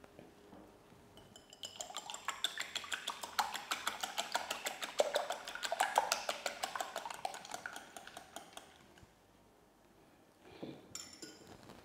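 Wire whisk beating eggs in a glass bowl, its wires clicking against the glass in a fast, even rhythm of about seven strokes a second for several seconds. A few clinks near the end as the whisk is laid down on a glass lid.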